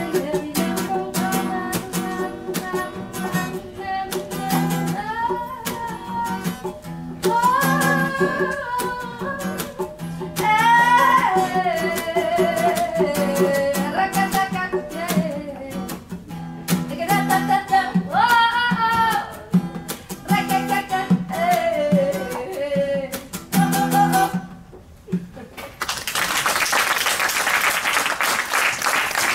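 Acoustic reggae song from a trio: strummed acoustic guitar, a djembe hand drum and a woman singing. The song ends about 25 seconds in, and audience applause follows.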